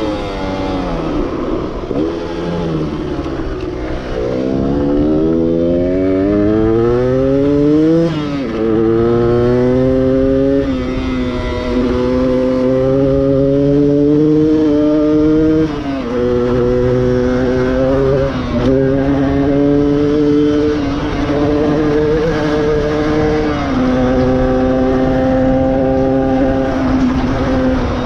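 Stock 1994 Yamaha DT125R's two-stroke single-cylinder engine being ridden. Its pitch falls at first as it slows, then climbs steeply under hard acceleration. After that it holds a fairly steady pitch, broken by several sudden short dips between gears.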